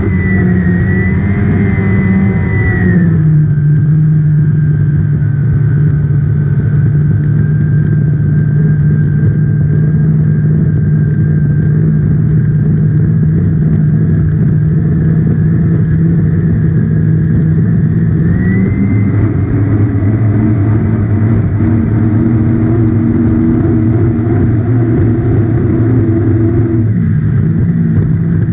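A racing hydroplane's engine running hard, heard from on board the boat. Its note drops about three seconds in, holds steady, climbs again a little past halfway, and drops once more near the end.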